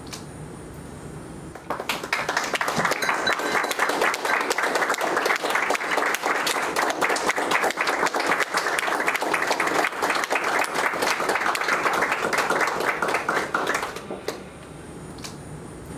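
Audience clapping, a dense patter of many hands that starts suddenly about two seconds in and dies away near the end.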